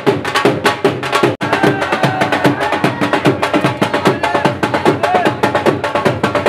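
Fast, driving dhol drumming in bhangra-style dance music, with a melody line over the beat. The music cuts out for an instant about a second and a half in.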